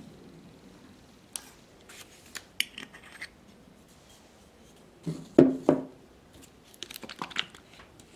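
Tabletop handling of the cleaning supplies: small clicks, scratches and rustles of solvent bottles, cotton swabs and a paper cup being moved about, with two or three loud knocks on the table about five and a half seconds in.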